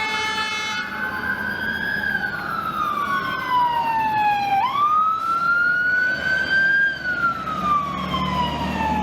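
Fire truck siren wailing, its pitch slowly rising and falling. It follows a steady horn blast that ends about a second in. A heavy truck's engine rumble grows near the end as the apparatus approaches.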